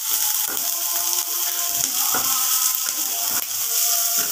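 Chopped onion and green chillies sizzling in mustard oil in a non-stick kadai. A wooden spatula scrapes and taps across the pan several times as it stirs.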